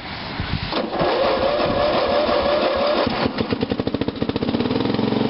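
John Deere 108 riding mower's 8 hp Briggs & Stratton single-cylinder engine being cold-started on choke: the electric starter cranks for about two seconds, the engine catches about three seconds in, picks up speed and settles into a steady run near the end.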